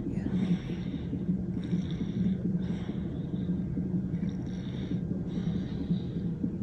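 Fetal heart monitor's Doppler speaker sounding the baby's heartbeat as a steady pulsing whoosh, with a hiss that comes and goes about once a second.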